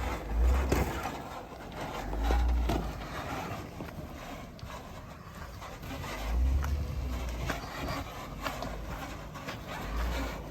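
Wind buffeting the microphone in four gusts, with scattered light crunches and clicks in between.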